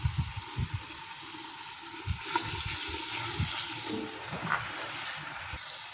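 Spice masala sizzling in a metal pot while it is stirred with a spatula, with a few soft knocks of the spatula against the pot; the hiss grows brighter about two seconds in.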